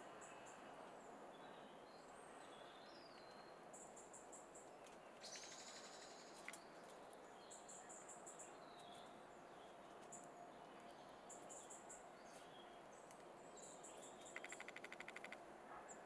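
Faint songbirds against a quiet hiss. A very high, thin call of a few quick notes repeats every couple of seconds, and a rapid rattling trill comes near the end.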